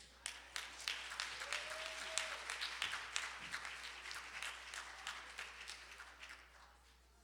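Audience applause in a church, many hands clapping, building quickly and tapering off near the end, with a brief faint whistle partway through.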